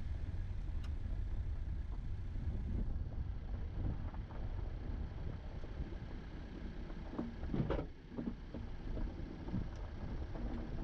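Subaru Impreza driving slowly on a dirt and gravel road: a steady low rumble of tyres on gravel, with scattered knocks. A brief clatter comes about seven and a half seconds in.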